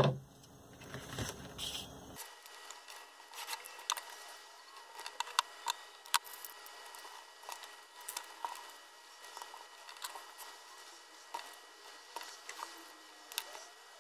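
Paper strips and metal paper fasteners being handled on a cardboard sheet: faint rustling with a scattering of small sharp clicks and taps at irregular intervals.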